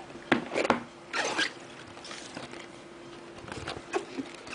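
Cardboard box and bubble-wrapped router being handled while unpacking: a few sharp taps and clicks in the first second, a rustle of plastic wrap, then quieter handling noise. A faint steady hum runs underneath.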